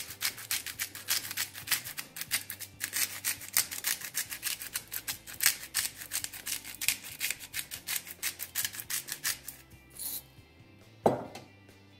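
Seasoning shaker rattling in quick, uneven shakes as salt and pepper are shaken over raw salmon fillets, stopping about ten seconds in. Near the end comes a single sharp knock.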